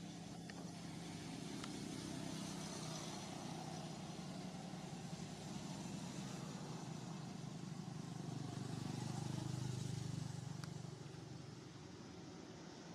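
A motor vehicle's engine running steadily, getting louder about eight seconds in and easing off near the end.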